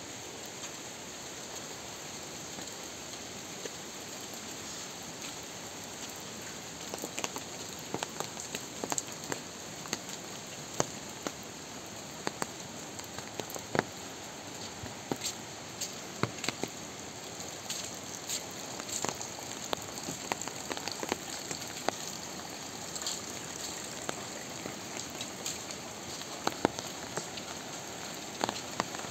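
Steady rain falling, with many sharp individual drops ticking on surfaces close by. The drop impacts grow more frequent and louder from about seven seconds in.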